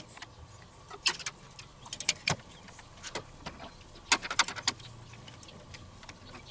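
Metal grill tongs clicking and clinking against a wire rib rack, the grill grate and a metal tray as racks of smoked ribs are lifted off and set down: a series of sharp metallic clicks, with a quick cluster of them about four seconds in.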